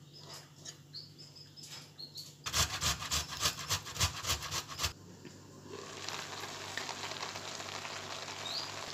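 A tomato rasped against a metal box grater, about three scraping strokes a second, stopping about five seconds in. Then green beans sizzle steadily in butter and onion in the pot as they cook.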